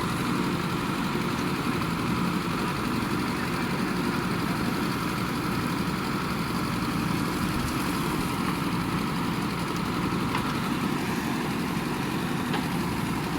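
Diesel engine of a JCB 3DX backhoe loader running steadily at a constant speed.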